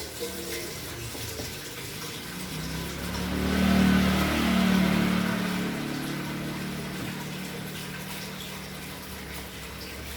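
Water running from a tap, rising to its strongest a few seconds in, with a steady low hum underneath from about two and a half seconds on.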